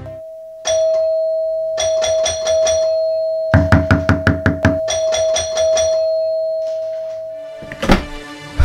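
Urgent banging with an open hand on a wooden door and a doorbell ringing, in three quick runs of strikes over a single held tone. The middle run is the loudest, with deep thuds.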